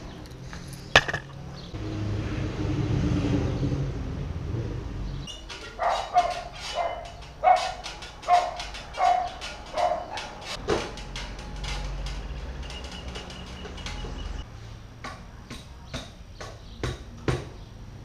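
A dog barks about seven times in a row, spaced a little under a second apart, after a few seconds of low rumble. Near the end come several sharp clicks and knocks as motorcycle exhaust parts are handled and fitted.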